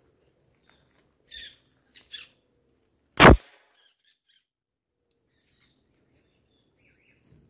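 A single loud gunshot about three seconds in, cracking and dying away quickly, with faint bird chirps before and after it.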